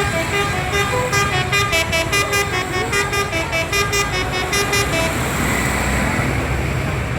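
A multi-tone 'telolet' horn on a bus or truck playing a quick tune of rapidly changing notes for about five seconds, then stopping, leaving engine and traffic rumble.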